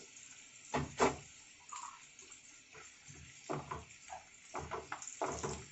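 Wooden spatula knocking and scraping in a nonstick frying pan as sliced onions are stirred, with short irregular strokes from about three and a half seconds in, over a faint sizzle of onions sautéing on low heat. Two sharp knocks about a second in.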